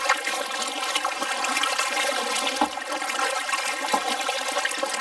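Water rushing and splashing along the bow of a kayak that is being paddled forward at a steady pace.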